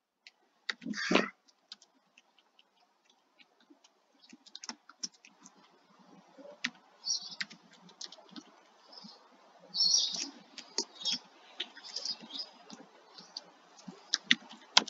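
Computer keyboard typing and clicking, faint and irregular, as figures are entered into a form, with a short louder sound about a second in and a few soft hisses later.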